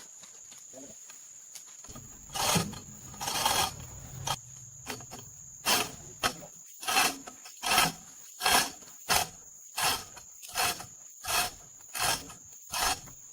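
Repeated scraping strokes of a hand tool worked back and forth over a surface, about fourteen of them, roughly one every 0.7 s, starting about two seconds in. A steady high-pitched tone runs underneath.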